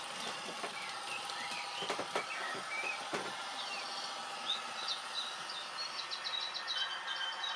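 Recorded birdsong, many short chirps and gliding calls, played from a model railway's 'twittering tree' sound module over a steady hum, with a few clicks about two to three seconds in.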